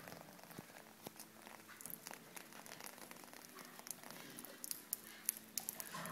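Faint scattered clicks and rustles from a wet white duck shaking and preening its feathers after a shower. The clicks come thicker about five seconds in.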